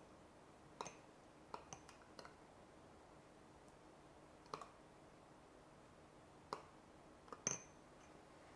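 Light clicks and taps of kitchen utensils and dishes being handled, about eight in all, scattered over a faint room hush; the loudest comes near the end.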